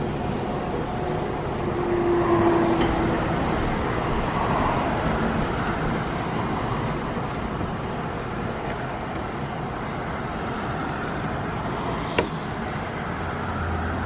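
Helicopter running with a steady noise, a little louder a couple of seconds in, with one sharp click about 12 seconds in.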